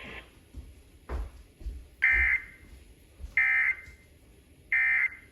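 Emergency Alert System end-of-message data bursts: three short, identical digital squawks about 1.3 seconds apart, signalling the end of the tornado warning broadcast.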